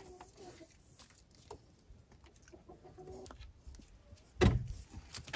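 A few faint, short calls from farm animals, then one loud, sharp knock about four and a half seconds in, likely a wooden board being handled at the pen.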